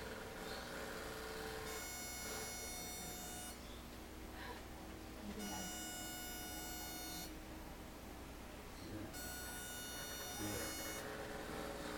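High-pitched electrical buzz from a gas-filled plasma tube therapy machine, pulsing on and off in a steady cycle: three bursts of about two seconds each with equal gaps, in step with the tubes lighting and going dark. A low steady hum runs underneath.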